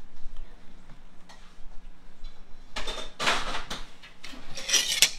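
A metal spoon scraping and digging in a cup of a metal muffin tin, working out a portion of baked cornbread dressing. There are two scraping passes, one a little past halfway and a shorter one near the end.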